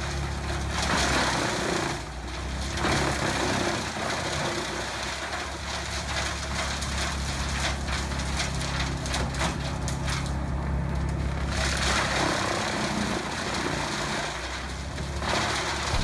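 A heavy shredding machine's engine running steadily under load, with crunching and cracking as material is ground through it.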